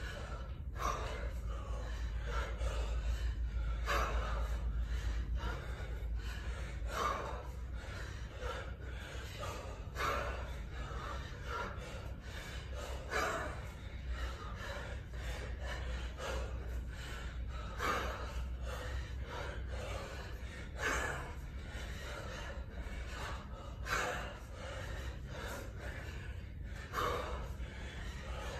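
A kettlebell lifter breathing hard mid-set, with a sharp gasp or forceful exhale about every three seconds in time with his one-arm kettlebell reps.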